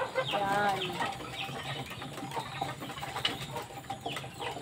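A flock of pigeons pecking grain off a slatted bamboo floor: scattered light taps, with short bird calls in the background.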